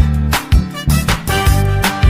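Upbeat background music with a steady, bouncy beat.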